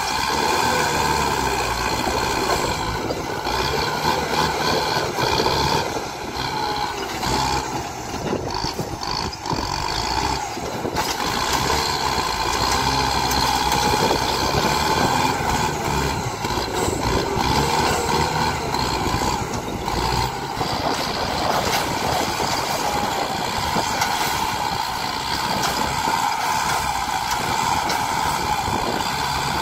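Kubota farm tractor's diesel engine running steadily under load as it pushes and ploughs dry soil, with a slight drop in loudness about a third of the way through.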